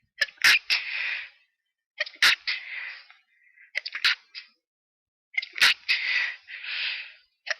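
A person sneezing from a cat allergy: four sneezes in quick succession, each a sharp burst with a breathy tail, the last the longest.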